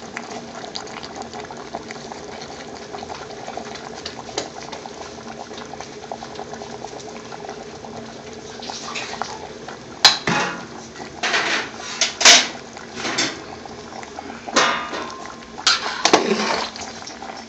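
Large steel pot of curry base gravy simmering with a steady bubbling hiss. From about ten seconds in, a run of sharp metal knocks and clatter from utensils against the pot.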